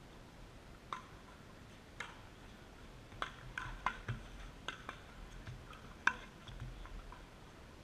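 Pickleball paddles hitting a hard plastic ball during a rally: a series of sharp, uneven pops, several close together in the middle, the loudest about six seconds in.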